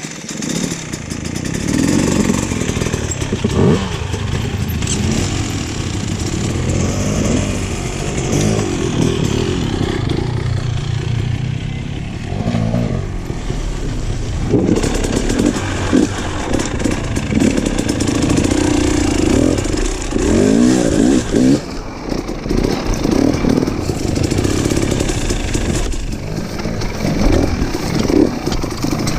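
Off-road motorcycle engine running along a trail, its revs rising and falling again and again as the throttle is worked.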